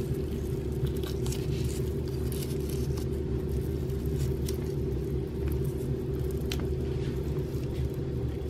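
Steady low hum of a running motor or appliance, with a few faint clicks and soft handling sounds from hands rolling a raw fish fillet.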